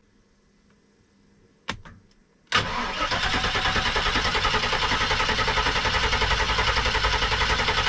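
Starter cranking the carbureted gasoline engine of a 1987 Fleetwood Bounder motorhome: a click, then from about two and a half seconds in a steady, rapid rhythmic churn that never catches. The engine turns over but won't fire; it has sat long enough for fuel to evaporate from the carburetor, and the choke is not set.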